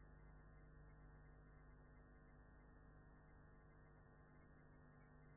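Near silence: a faint, steady electrical hum with hiss, with no other sound.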